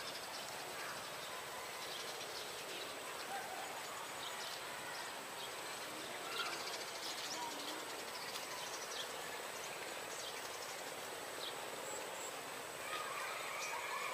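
Rural outdoor ambience: a steady hiss with scattered short bird chirps and a steady high insect-like tone.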